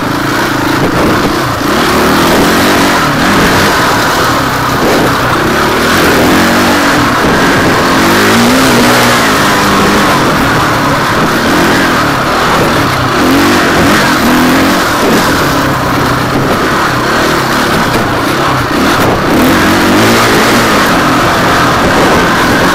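Enduro dirt bike engine heard close up from an on-bike camera, revving up and falling back again and again as the rider opens and closes the throttle through the gears over rough ground.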